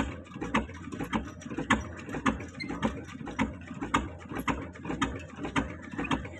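Big Petter-type stationary diesel engine running slowly in a cold start, each firing stroke an even knock about twice a second while it puffs black smoke.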